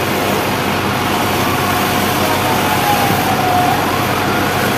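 An emergency vehicle siren wailing, its pitch sliding slowly down and then rising again near the end, heard over a loud, steady rushing noise.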